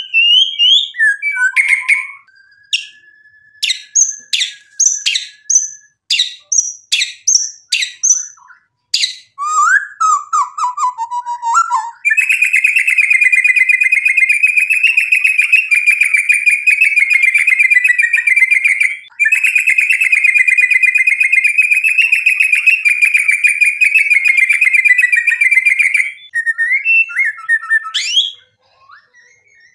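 White-rumped shama (murai batu) singing: a string of varied whistles and sharp rising notes, including one held whistle, then a long, fast, unbroken trill of about fourteen seconds with one short break midway, and more whistled phrases near the end.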